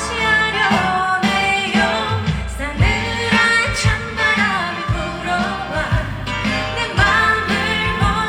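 A female trot singer singing a melody over band accompaniment, with a steady bass line and regular drum beats.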